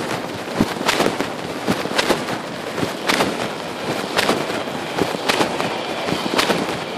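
Phone microphone inside a trouser pocket, with the pocket fabric rubbing and scraping over it as the wearer walks: loud crackly swishes in a regular rhythm about once a second, over a steady noisy background.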